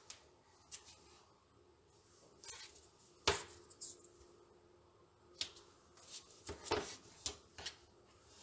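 Craft supplies handled on a cutting mat: a roll of tape and small paper pieces picked up and set down, giving scattered light taps and clicks, the sharpest about three seconds in and several more near the end.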